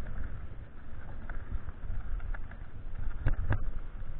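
Mountain bike rolling over a rough trail: a steady low rumble with scattered sharp knocks and clatter from the bike.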